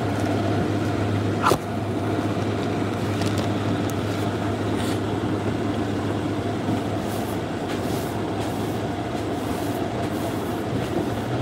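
A steady low machine hum with a constant whirring noise over it, and one sharp knock about a second and a half in.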